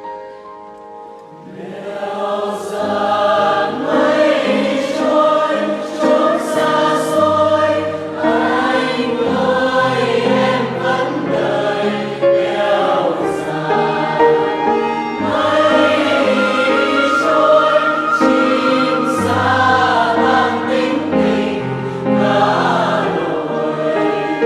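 Music: a choir singing, entering about a second and a half in after a quieter moment, then carrying on at a steady full level.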